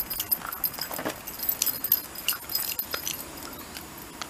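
A Shiba Inu's claws clicking and scraping on concrete as it pounces and paws at something on the ground: irregular light clicks and a few scuffs.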